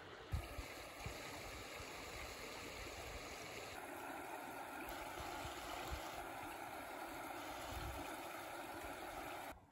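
Shallow mountain stream running over stones, a steady rush of water that grows fuller about four seconds in, with a few low thumps of wind on the microphone.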